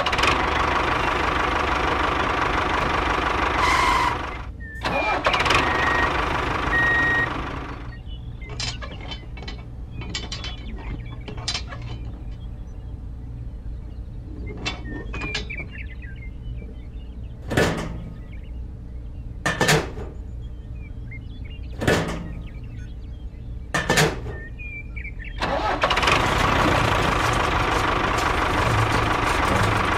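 Engine running steadily for the first several seconds and again near the end. In between, quieter handling clicks and four sharp knocks about two seconds apart, as the trailer hitch is pinned to the miniature tractor.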